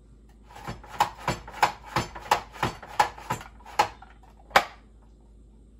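Plunger of a Pampered Chef Rapid-Prep Mandoline pounded down again and again, pushing a cucumber through the blade into thin sticks. About ten sharp knocks at roughly three a second, then a last, loudest one after a short pause.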